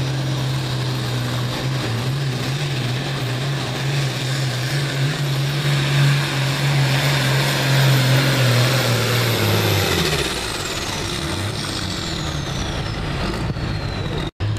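John Deere hot farm pulling tractor's diesel engine running hard at full throttle, dragging a weight-transfer sled. About ten seconds in the throttle comes off and the engine note drops away, and a high whine falls in pitch as the pull ends.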